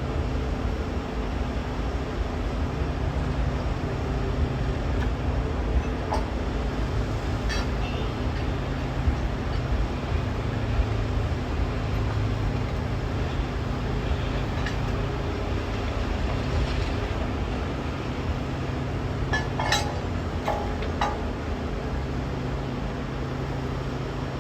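A large engine running steadily at a low, even pitch, with a few sharp metallic clinks, most of them in a short cluster about twenty seconds in.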